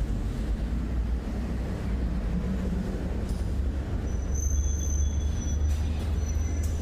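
A machine running steadily, with a constant low hum under an even rushing noise; a thin high whine joins about four seconds in.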